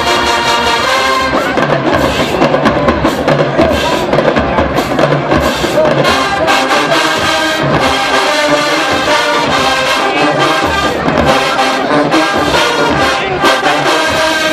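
HBCU marching band playing a loud brass tune, horns over a steady drum beat.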